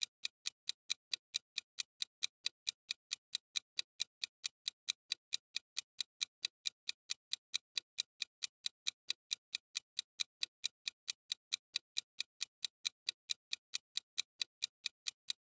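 Countdown timer sound effect: an even, clock-like ticking at about four ticks a second, counting down the time to answer.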